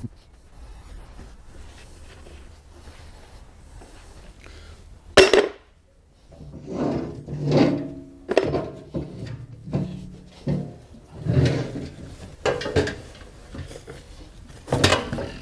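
A heavy steel hopper safe being shifted and slid by hand on a steel shelf: one sharp knock about five seconds in, then a run of irregular scrapes and bumps.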